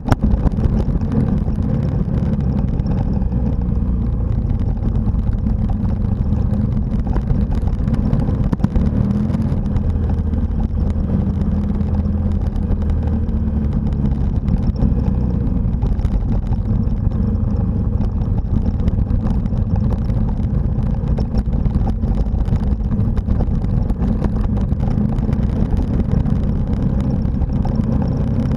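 Motorcycle engine running at speed on a gravel road, its note rising and falling with the throttle, over a steady rush of wind and tyre noise.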